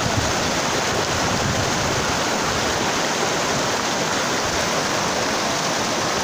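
Shallow rocky mountain stream rushing over boulders in small whitewater rapids, a steady, even rush of water.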